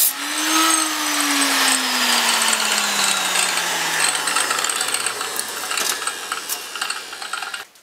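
Angle grinder with a cutting disc cutting scrap sheet steel with a loud grinding hiss. Soon after the start its motor begins to wind down, its pitch falling slowly over about six seconds, while the hiss carries on until it drops away near the end.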